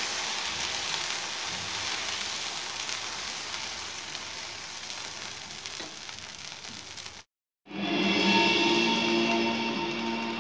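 Beetroot dosa batter sizzling on a hot dosa tawa as it is spread out with a ladle, a steady hiss. About seven seconds in the sound cuts off abruptly and background music takes over.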